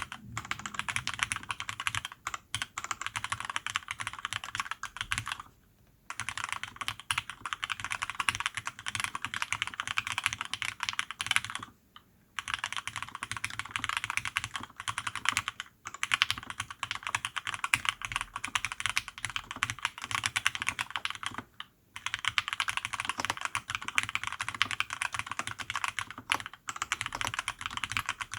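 Fast, continuous typing on a TX65 custom mechanical keyboard with PBT keycaps: a dense stream of key clacks, broken by a few short pauses.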